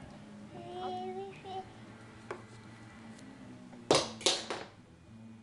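A toddler's short, quiet vocal sound, then three sharp knocks in quick succession about four seconds in.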